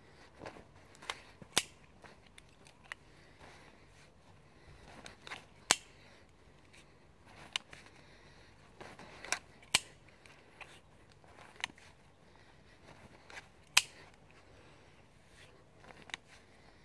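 A knife being drawn from the waistband and handled, giving a series of sharp clicks at irregular intervals, several seconds apart at times.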